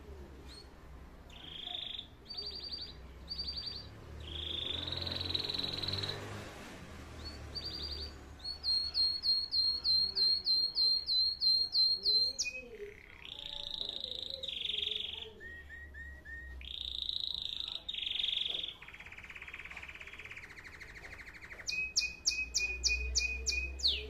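A caged canary singing a long varied song of trills and warbled phrases, with a run of sharp repeated notes about four a second in the middle and a fast trill near the end.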